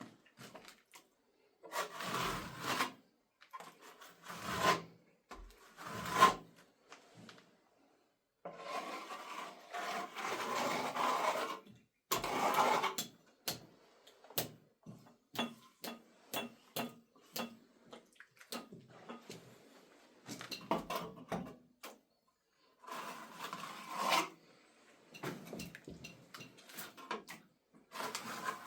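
Irregular scraping and rubbing strokes, each lasting a second or two, broken by short sharp knocks, as wet plaster is worked onto a wall by hand.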